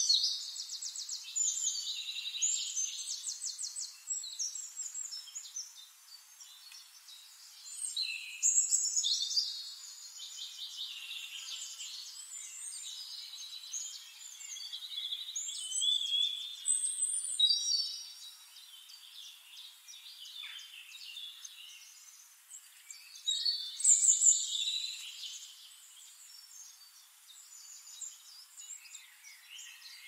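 Wild songbirds singing: rapid high trills and chirps in phrases a few seconds long, coming in clusters every several seconds, loudest near the start and again about three-quarters of the way through.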